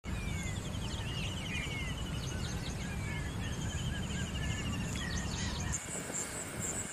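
Forest birds singing, repeated trills and short whistles from several birds, over a low steady rumble. Near the end the rumble stops abruptly and a rhythmic high insect chirring begins.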